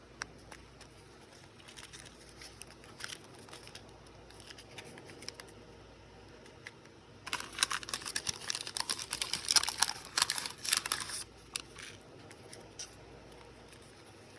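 Plastic packaging crinkling and tearing as a small wrapped item is opened by hand: scattered light clicks and rustles at first, then about four seconds of dense crinkling starting about seven seconds in.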